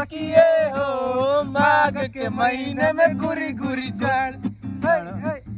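Male voice singing held, wavering notes over a strummed acoustic guitar.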